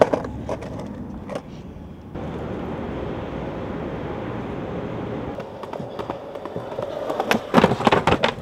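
Skateboard wheels rolling on pavement, with sharp clacks of the board in the first second or so and a cluster of loud clacks and impacts near the end.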